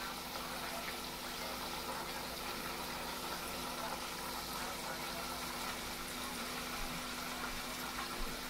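Breaded food deep-frying in hot oil, with a steady sizzling and bubbling.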